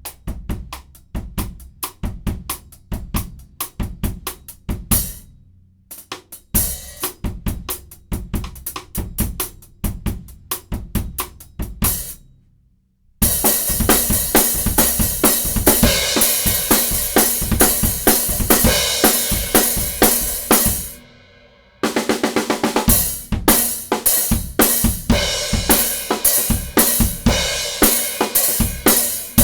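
Acoustic drum kit (Tama Silverstar drums with cymbals the owner takes for Sabian AAs) playing short grooves on hi-hat, snare and bass drum, stopping briefly between phrases. About 13 seconds in the playing gets louder, with a steady crash or ride cymbal wash over the beat, pauses briefly near 21 seconds, then carries on.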